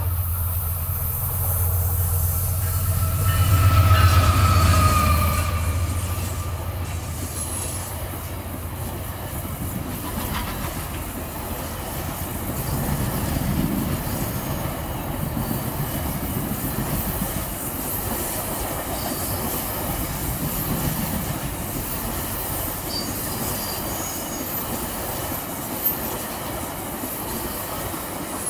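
Diesel-hauled passenger train passing close by: the locomotive's engine drone is loudest about four seconds in as it goes by, with a short falling whine, then the coaches roll past in a long steady rush of wheel-on-rail noise with faint high squeals here and there and a single sharp clunk near the end.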